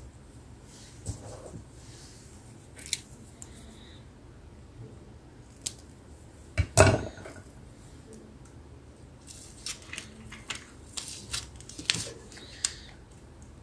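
Scattered small clicks, snips and rustles of hands working craft materials, setting cut bouquet flowers in place with glue. The loudest knock comes about seven seconds in, with a busier run of clicks near the end.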